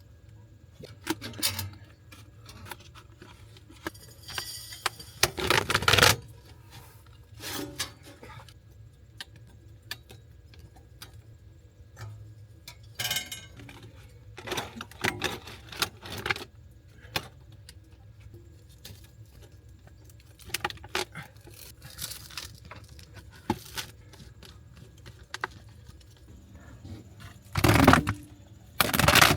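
Scattered clinks, knocks and scrapes of tools and parts being handled, with louder clattering bursts about five seconds in and again near the end.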